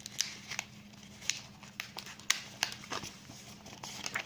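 Paper booklet being handled and opened, its pages rustling with a series of short, sharp crinkles.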